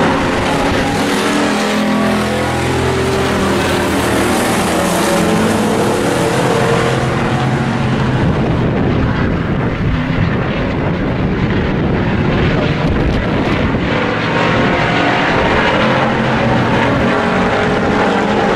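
A pack of hobby-class pickup trucks racing around an oval, several engines running hard at once. Their overlapping engine notes rise and fall in pitch as the trucks pass, then blend into a denser, noisier engine sound in the second half.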